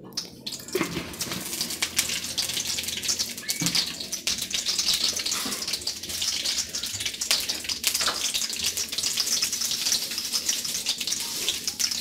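Cooking oil sizzling and crackling as it heats in an aluminium kadai, starting about half a second in, with many small pops over a steady hiss.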